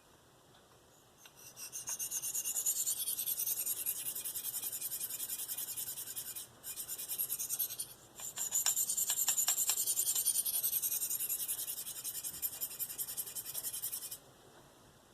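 V-Toku2 steel blade of a Spyderco Endura 4 stroked freehand across a Spyderco 302M medium ceramic stone: a rapid, steady high scraping. It starts about a second in, breaks off briefly twice around the middle, and stops about a second before the end.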